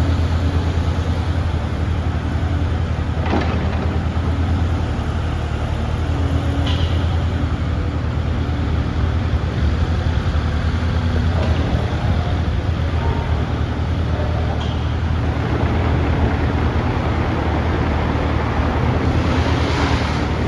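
Diesel engine of a Kubota KX042-4 midi-excavator running steadily, with a few short squeaks or clicks now and then.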